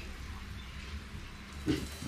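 Fish simmering in water and gravy in a non-stick pan on the stove, giving a faint steady sizzle and hiss, with one short sharp sound near the end.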